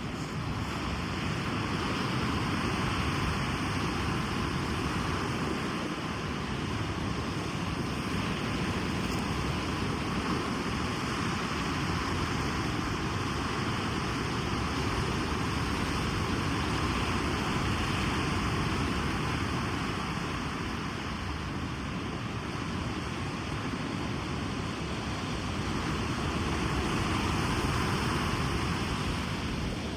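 Ocean surf on a beach: a continuous wash of breaking waves that swells and eases slowly every several seconds.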